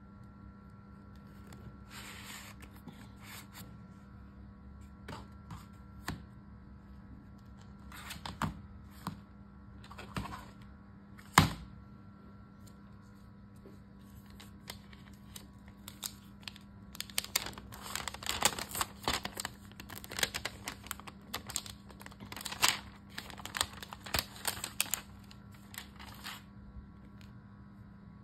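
Plastic protective film crinkling and tearing as it is peeled off a new smartphone, with scattered taps and clicks of the cardboard packaging. A single sharp click near the middle is the loudest sound, and the crinkling is densest over the second half.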